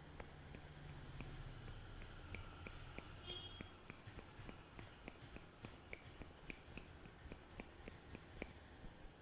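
A quick, irregular string of light, sharp clicks and snaps, a few a second, over a faint low hum. The clicks come from a barber's hands-on massage.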